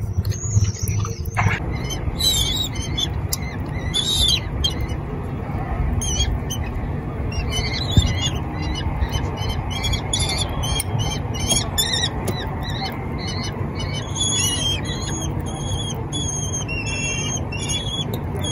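Young kestrels giving repeated short, high-pitched calls, several birds at once, the calling growing busier in the second half, over a steady low background rumble.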